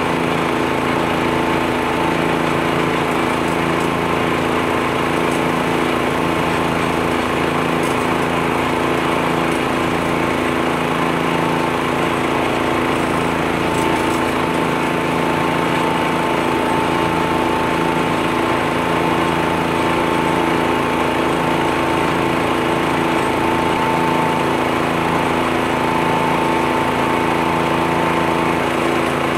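Engines of a John Deere 1025R compact tractor and its front-mounted U-Mount leaf blower running steadily while the blower clears leaves, with a high whine that comes and goes.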